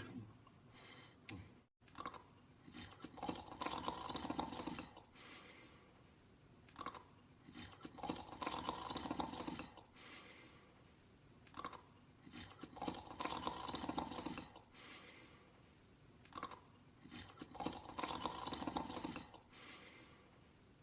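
Slow, regular snoring: four rasping snores, each lasting one and a half to two seconds, about one every five seconds, with a short click before each.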